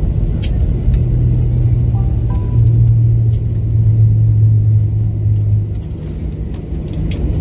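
Cabin noise of a Boeing 737-800 taxiing: the jet engines' low steady drone, swelling about two and a half seconds in and easing near the end, with light clicks and rattles.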